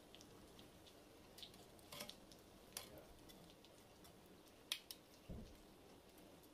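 Hot oil crackling faintly around breaded potato-and-cheese balls deep-frying in a pan. A few sharper clicks come from metal tongs as the balls are turned, the loudest a little past the middle, followed by a soft low thump.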